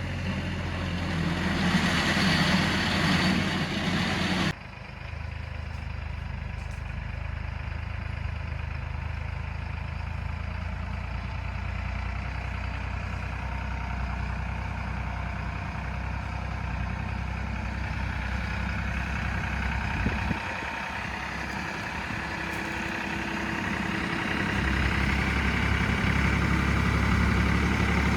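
Farm tractor engine running hard with a rushing noise for the first four seconds or so as the tractor slips in deep mud. It then drops suddenly to a steadier, lower running that grows louder again near the end.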